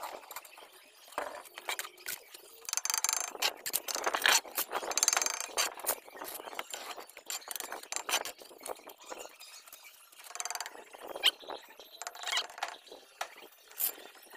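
Mason's trowel scraping wet mortar and tapping hollow clay bricks as a brick course is laid: an irregular string of scrapes and clinks, busiest a few seconds in.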